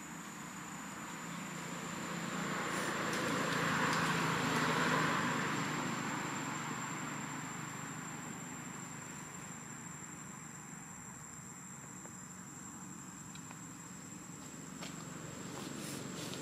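A distant motor vehicle passing by: its engine and road noise swell to a peak about four seconds in, then fade away. A steady high-pitched insect whine runs underneath.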